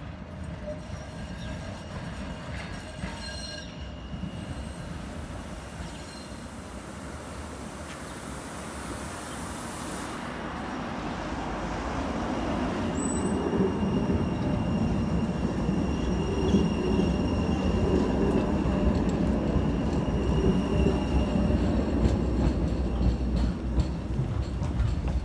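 Class 399 Citylink tram-train running on street track, growing louder from about ten seconds in as it draws near and passes close. A faint high steady whine sits over the rumble of wheels and motors.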